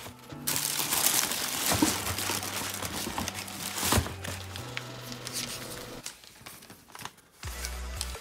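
Shoebox tissue paper crinkling and rustling as the box is opened and the wrapping is pulled back by hand, loudest in the first few seconds, then softer rustles that die away.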